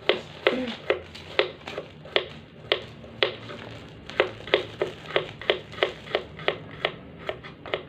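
Shallots being sliced with a small sharp knife on a wooden cutting board: a steady run of crisp taps, about three a second, each one the blade striking the board.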